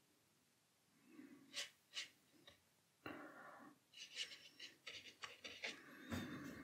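Faint scratches and taps of a watercolour brush on paper, then the brush working wet paint in the palette near the end.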